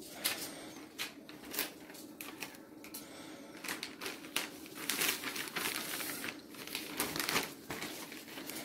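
Paper and a courier envelope rustling and crinkling by hand, with irregular sharp clicks and taps, as a barcode sticker is pressed onto a Purolator envelope and the envelope is handled. The rustling is busiest about halfway through.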